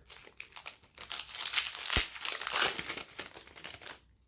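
Plastic wrapper of a hockey card pack crinkling and being torn open, with a sharp click about two seconds in.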